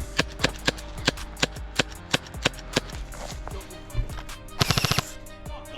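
Airsoft guns firing: single shots at uneven intervals, then a rapid full-auto burst about four and a half seconds in.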